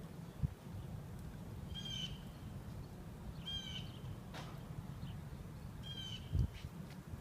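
A crow cawing three times, one short harsh call every one and a half to two seconds, over a steady low rumble; a dull thump about six seconds in.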